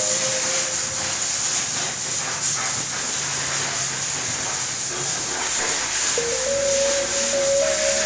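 Background music: a steady shaker-like hiss under a slow melody of held notes that step in pitch, the melody coming back in about six seconds in.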